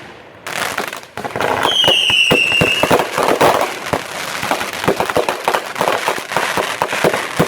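Fireworks display: a rapid barrage of bangs and crackling bursts, with a whistling firework sliding slightly down in pitch about two seconds in.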